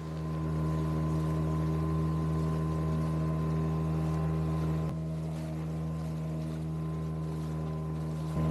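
Small outboard motor on an inflatable dinghy running steadily at cruising speed, its engine note holding one even pitch.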